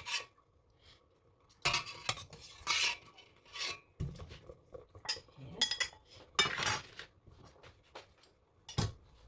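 A metal kitchen utensil clinking and scraping against a cooking pot in a string of short, separate clatters, as boiled chicken pieces are lifted out of the pot.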